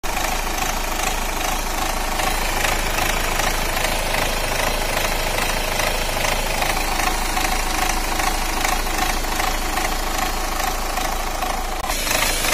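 Renault Duster engine idling roughly with a misfire, a steady, rapid, uneven knocking rumble. The mechanic suspects one injector nozzle is not working.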